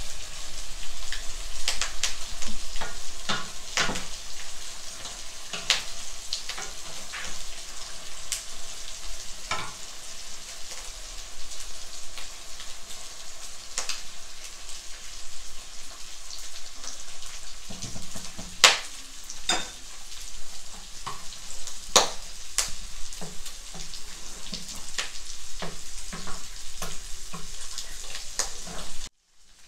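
Pork pieces sizzling and frying in a pot as pork blood is strained in and stirred, with a steady hiss. Frequent sharp clicks and taps of a metal strainer and a wooden spatula against the pot sound over it, and the sound cuts out briefly near the end.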